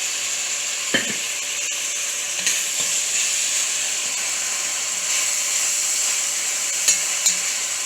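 Onions, garlic, pepper and green seasoning sizzling in oil in a pot, a steady frying hiss, with a few short knocks and scrapes, about five in all, as the pot is stirred.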